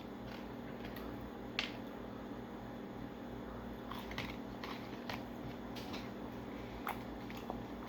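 A steady low room hum with a few scattered small clicks and light handling noises from a fast-food order and its packaging.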